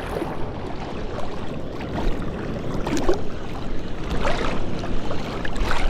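Shallow sea water sloshing and splashing, with several sharper splashes at irregular intervals.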